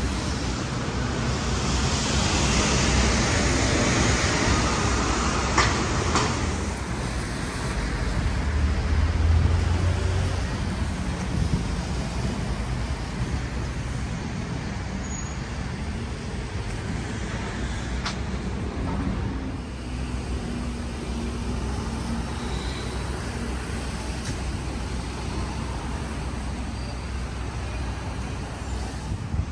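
Road traffic on a city street: a steady wash of passing vehicles, louder for the first few seconds. A heavy vehicle rumbles by about nine seconds in, and there are a few sharp clicks along the way.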